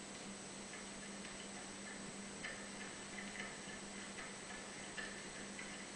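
Faint, unevenly spaced ticks, roughly one a second, over a steady low hum, heard through a television's speaker filmed off the screen.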